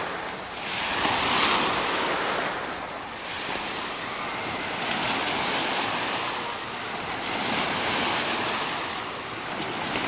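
Shallow water of a wave pool washing and lapping on its sloped beach, swelling and easing every few seconds.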